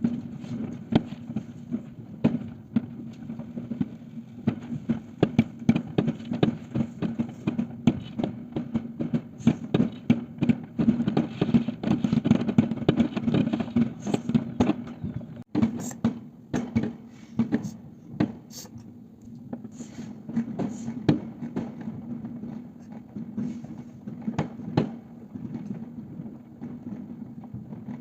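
Fireworks and firecrackers going off in a rapid string of sharp bangs and pops, densest in the first half and thinning out toward the end, over a steady low background rumble.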